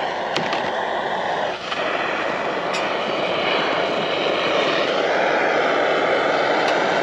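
Handheld gas torch burning with a steady, loud rushing hiss as its flame is held on split kindling to light it. The flame noise dips briefly about one and a half seconds in.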